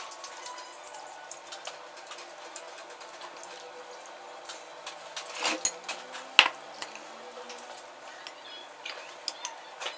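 Tableware clinking during a meal: a spoon and hands against glass plates and bowls, with small scattered clicks and a few sharper clinks between about five and a half and seven seconds in.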